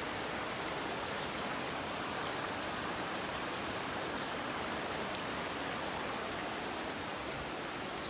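Rocky mountain stream rushing steadily over stones and small cascades.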